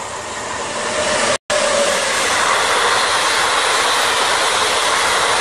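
Express train passing through a station at speed, hauled by an electric locomotive: the rushing noise of wheels and coaches builds over the first second and then holds loud and steady as the coaches go by. The sound cuts out for an instant about a second and a half in.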